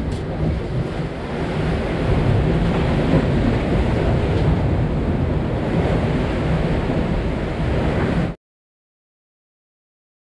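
Steady sea surf washing among concrete breakwater tetrapods, with wind rumbling on the microphone. It cuts off to silence about eight seconds in.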